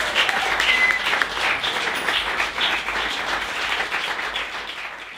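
Audience applauding, a dense patter of many hands clapping that gradually fades out toward the end.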